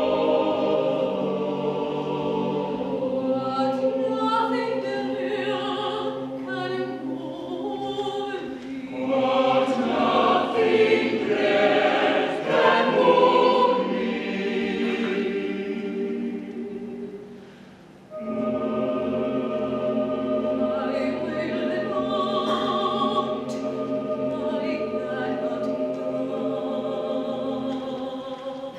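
Choir singing slow, sustained chords. The sound swells in the middle, fades away briefly about two-thirds of the way through, then a new held chord comes in.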